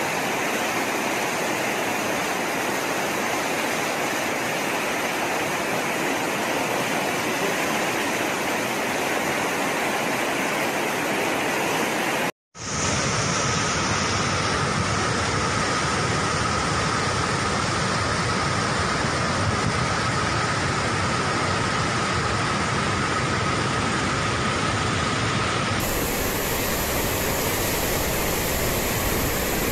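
Floodwater rushing, a steady loud rush of water, broken by a brief dropout about twelve seconds in where one clip cuts to the next. A faint steady tone runs under the middle stretch, and the water's sound shifts slightly about four seconds before the end.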